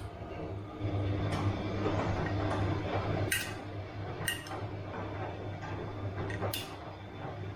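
Bosch washing machine running mid-cycle, the drum turning with a steady low hum and churning, and a few sharp clinks as something hard in the load knocks against the drum.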